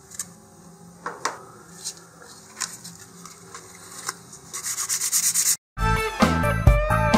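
Hobby-knife tip scraping and clicking in the holes of a puttied cardboard rocket ring, followed by about a second of quick rubbing with fine 400-grit sandpaper. The sound cuts off abruptly, and loud background music starts near the end.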